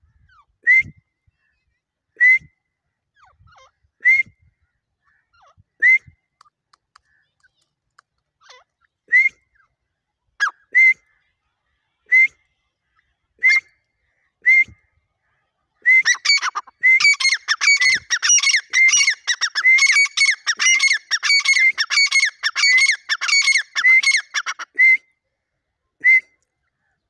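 Caged teetar (francolin) calling: sharp single calls every second or two, then a rapid run of repeated calls, several a second, lasting about nine seconds, and one last single call near the end.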